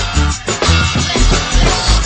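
Background music with a strong drum beat and guitar.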